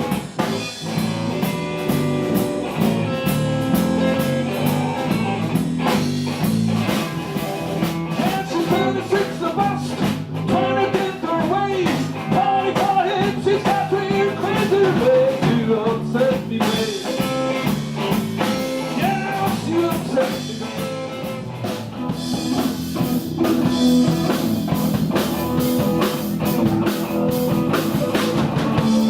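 Live blues-rock band playing with guitar and drum kit, a wavering lead melody standing out in the middle.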